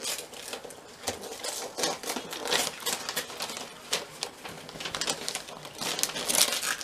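Wrapping paper on a present being picked at and torn open: an irregular run of crackles, rips and rustles.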